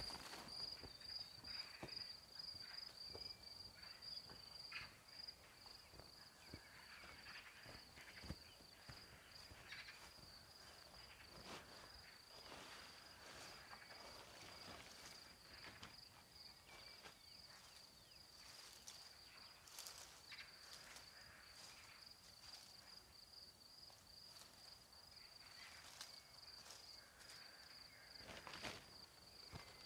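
Crickets chirring faintly in one steady high trill, with scattered soft clicks and rustles.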